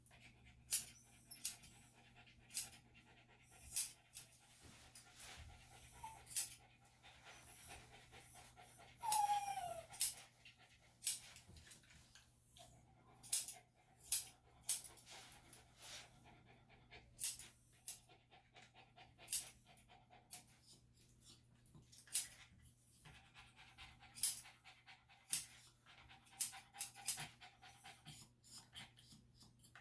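Senior Bichon–Shih Tzu dog panting, with a short falling whine about nine seconds in. Sharp snipping clicks from grooming tools come about once a second.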